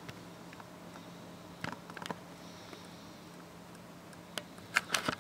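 Quiet room tone with a faint steady low hum, broken by a few scattered soft clicks and knocks of handling as a dress is held up and moved.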